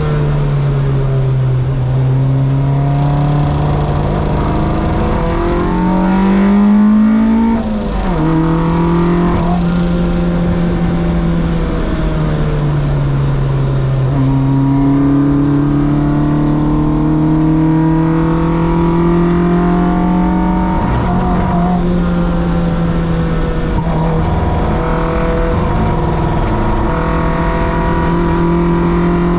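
Race car engine running hard on track, its note climbing and falling several times, with a sudden drop about eight seconds in.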